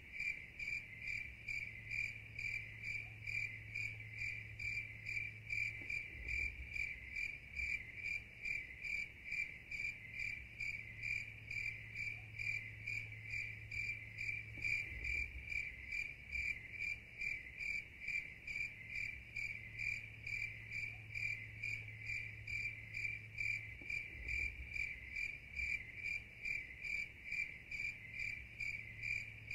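Cricket chirping at night: a high, pure-sounding note repeated in an even, unbroken pulse.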